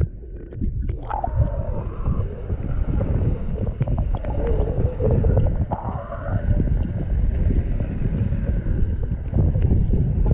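Underwater sound heard by a submerged camera: a dense, low churning rumble of water and bubbles. Muffled wavering tones rise above it about a second in and again from about four to seven seconds.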